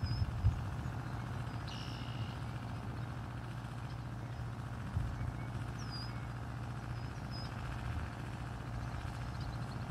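Outdoor rural ambience: a steady low rumble with a few soft thumps, and songbirds giving short chirps now and then.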